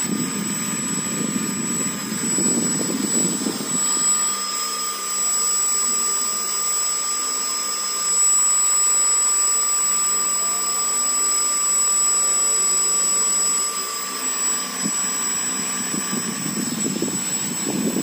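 Brushless drone motor driven by an electronic speed controller at low throttle (about 5–10%), spinning a large two-blade propeller: a steady high-pitched whine made of several fixed tones over a rush of air from the propeller.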